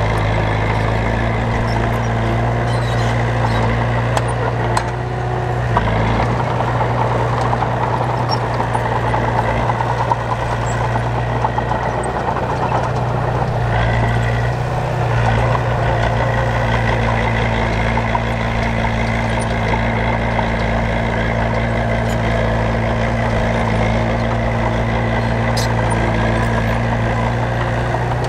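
Heavy diesel engine of road-building machinery running steadily, its note shifting slightly a couple of times.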